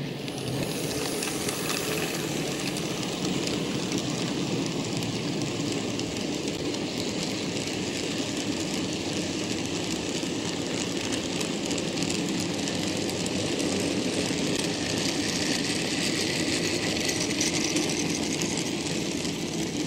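OO gauge model goods train of wagons rolling past on its track: a steady, continuous rumble and clatter of small metal wheels on rail.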